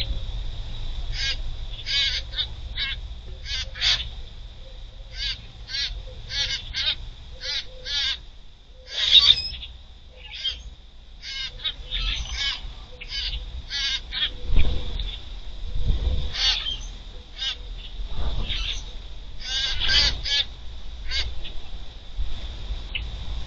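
Grackles calling: a long run of short, harsh calls, about one to two a second, over a steady high buzz, with a few low thumps about midway.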